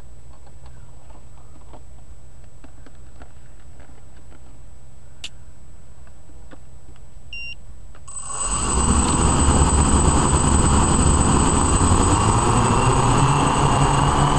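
Hexacopter at rest with a steady high electronic whine and faint ticking, a short beep about seven seconds in, then its six motors spin up about eight seconds in and run with a loud, steady propeller buzz.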